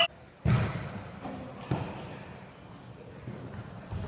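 A ball struck hard about half a second in, then a lighter thump about a second later, each echoing briefly in a large hall, over low background voices.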